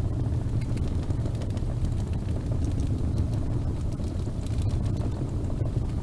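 Wood fire burning in a fireplace: a steady low rumble of flames with a few scattered small crackles and pops.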